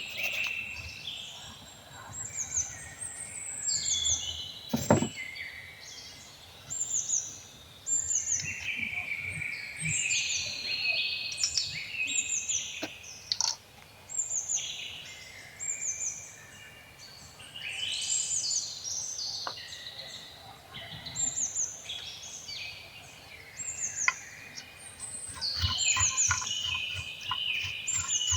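Birds chirping and singing, a steady run of quick high falling notes, with a few soft knocks and one louder thump about five seconds in.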